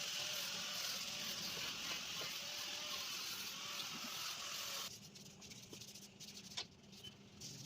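Steady hiss of a spray, as in cleaning an engine bay, that cuts off suddenly about five seconds in.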